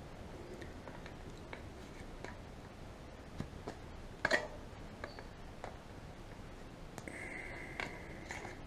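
Faint scattered clicks and rubbing of a plastic tyre lever and the tyre bead against a bicycle rim as the lever is worked under a mountain bike tyre, with one sharper click about four seconds in.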